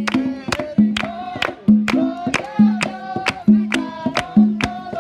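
A group singing a lively worship song together, backed by instruments with a steady low bass note and a sharp, even beat.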